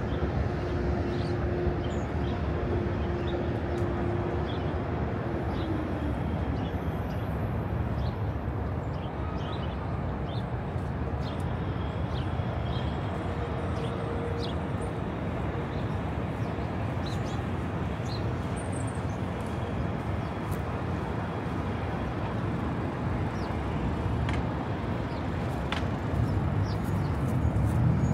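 City street ambience: a steady rumble of traffic, with a low hum that slides down in pitch about five seconds in and scattered faint ticks.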